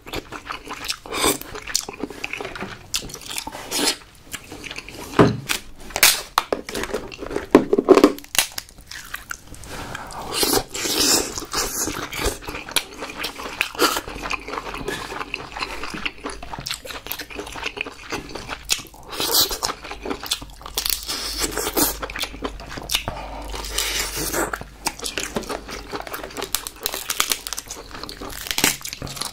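Chewing and biting king crab leg meat, with irregular crunches and clicks from the shell pieces being handled.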